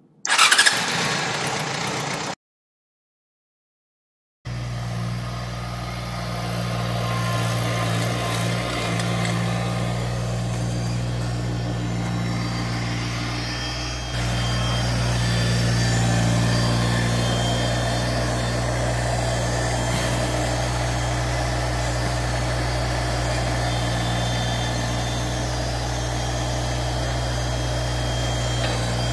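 A short burst of noise, then about two seconds of silence, then an LS MT125 subcompact tractor's three-cylinder diesel engine running steadily while it does front-loader work.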